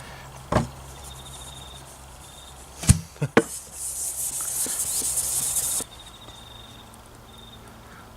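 A natural sharpening stone knocks against a glass lapping plate, a sharp knock followed by two lighter ones, then scrapes across it with a steady hissing rub for about two seconds that stops abruptly. Faint cricket trills run behind.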